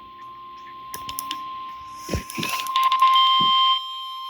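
NOAA Weather Radio warning alarm tone: one steady, high, continuous tone at about 1050 Hz. Partway through, a few clicks and a burst of rougher noise come in over it.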